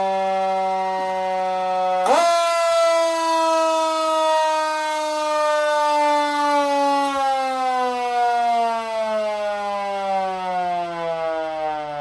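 Fire engine's substitute Q siren sounding during a test. It holds one steady tone, then about two seconds in steps up sharply in pitch and slowly winds down lower and lower.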